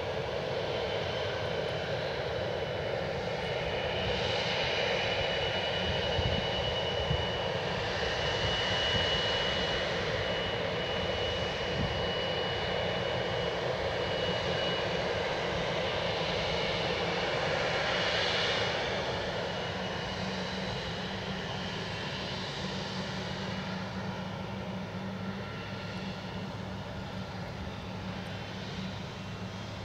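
Airliner jet engines running, a steady rush of engine noise with a thin high whine through the first half. The noise eases off after about 19 seconds.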